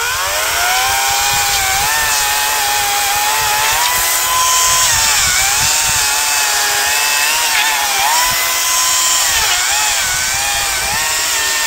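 Parkside PKSA 40-Li A1 cordless dual-battery electric chainsaw running at full power and cutting through a spruce log. Its steady motor whine dips in pitch a few times as the chain bites into the wood and picks back up each time.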